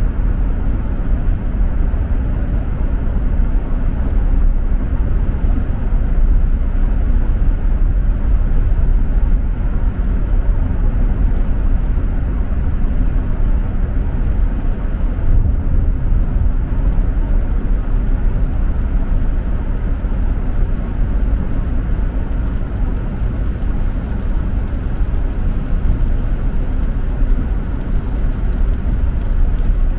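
Steady low rumble of a car driving at highway speed on rain-wet pavement, heard from inside the cabin: tyre and road noise with engine underneath.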